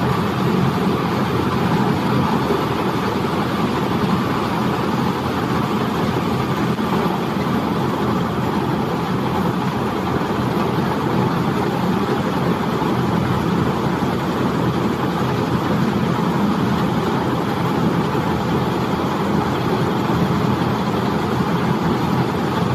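Silage round baler and bale wrapper machine running with a steady, unchanging mechanical drone.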